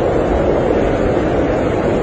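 Blizzard wind blowing steadily: a dense, even rush of noise with a deep low end and no breaks.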